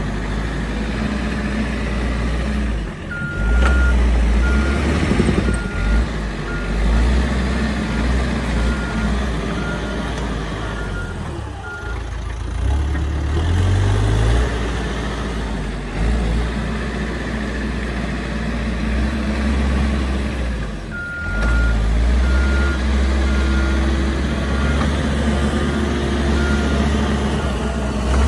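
Caterpillar 426F backhoe loader's diesel engine running under working load, its speed rising and falling. Its reversing alarm beeps twice as it backs up: a run of evenly spaced beeps a few seconds in, and another about twenty seconds in.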